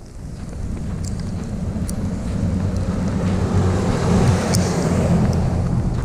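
A vehicle passing on a slushy, icy street, its tyre noise swelling to a peak about four to five seconds in and then easing, over a low wind rumble on the microphone.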